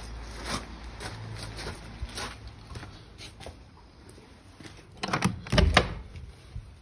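Footsteps at a walking pace, then, about five seconds in, a loud rattling clatter as a wooden outbuilding door is unlatched and pulled open.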